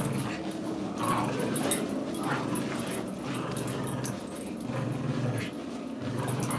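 A miniature pinscher and a heeler-mix puppy playing tug-of-war over a rope toy, growling in repeated spells of about a second each.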